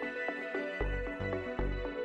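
Instrumental background music with short repeated notes over a steady bass beat.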